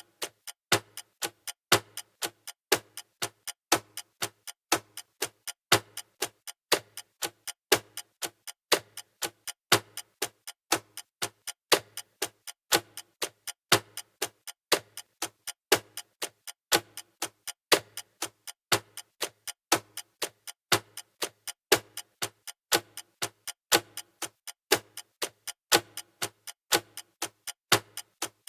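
Clock ticking at a steady even rate, a louder tick about once a second with softer ticks between.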